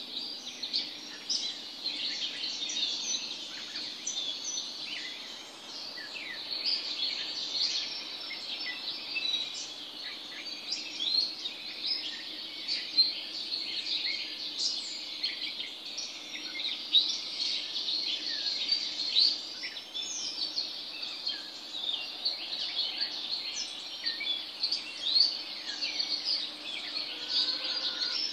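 Morning chorus of many birds singing and calling at once: a dense, continuous stream of short overlapping chirps and whistles, with a faint steady hum underneath.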